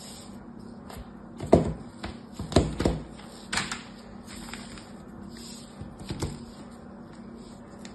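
Hard bars of soap set down on a table and knocked against one another: a handful of sharp clacks, clustered from about one and a half to nearly four seconds in, with one more about six seconds in.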